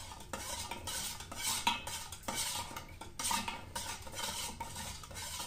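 Metal spoon stirring powdered isotonic drink mix into water in a metal cup, scraping and clinking against the sides in quick, uneven strokes.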